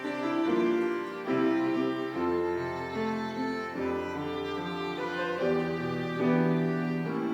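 Violin playing a slow melody of held notes over a lower accompaniment.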